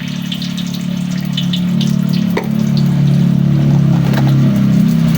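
A steady, loud low mechanical hum, with light clinks and scrapes over it and one sharp click about two and a half seconds in.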